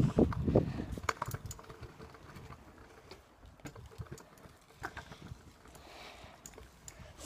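Handling noise from a hand-held phone camera: a burst of low rumbling and knocks at the start, then scattered irregular clicks and rubbing as the phone brushes against clothing.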